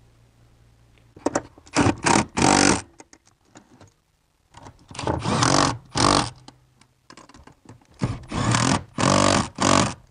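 Cordless power driver running bolts into the pedal assembly, in three spells of short bursts a few seconds apart.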